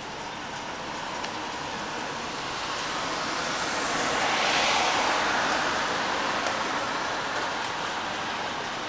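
Steady rain falling, with faint drip ticks now and then. A passing vehicle's hiss swells to a peak about halfway through and fades away.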